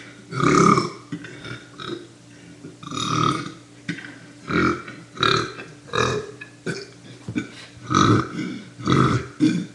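A man's deliberate burps, brought on by chugging milk: a string of about eight loud belches, each about half a second long, with short pauses between them.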